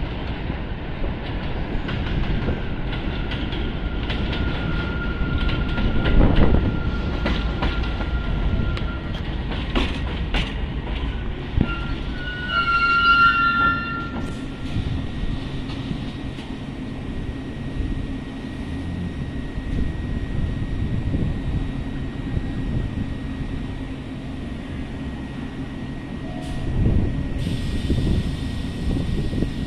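R62 New York City subway train running slowly along an elevated track, wheels rumbling on the rails. There is a high wheel squeal a few seconds in and a brief cluster of squeals around the middle, then a steady high whine.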